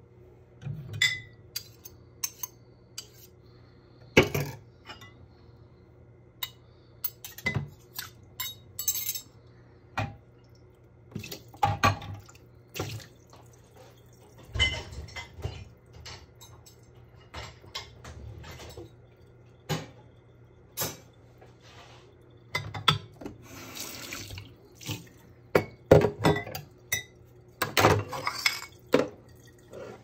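Dishes, glasses, cutlery and a pot clinking and knocking against each other and the stainless steel sink as they are moved around, with a few short spells of water running or splashing.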